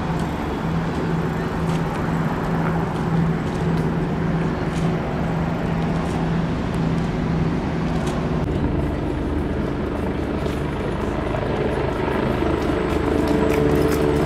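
Police patrol boat's engines running at speed across the river, a steady engine hum with the rush of water, its note getting louder toward the end as the boat draws nearer.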